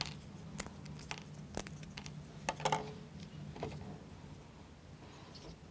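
Thin plywood model-kit parts clicking and tapping in the hands as they are pressed out of their sheet and fitted onto the cup: a few light, separate clicks, irregularly spaced.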